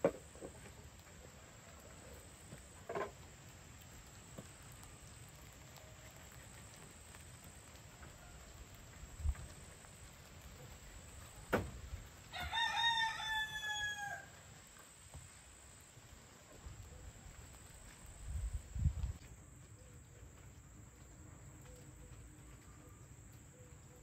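Rooster crowing once about halfway through, a call of about two seconds that falls in pitch at the end. A few sharp knocks and dull thuds sound around it.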